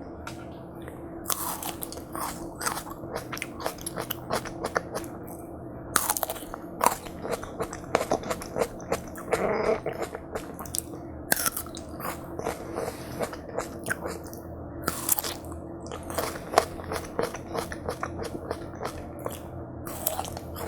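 Close-miked eating of watermelon hwachae: crisp, juicy bites of watermelon and wet chewing, in irregular bursts, over a steady low hum.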